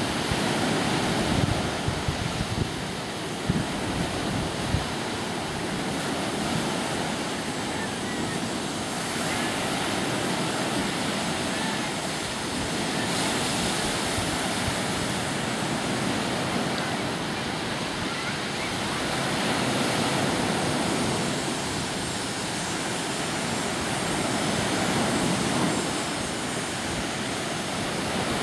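Choppy lake water washing on the shore, a steady rush that swells and eases every few seconds, with wind buffeting the microphone. A few brief knocks in the first five seconds.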